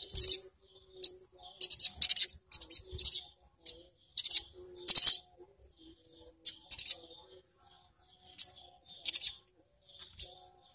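Sunbird (sogon, or sogok ontong) calling in short bursts of sharp, very high chirps, quick-fire in the first half and more spaced out after that.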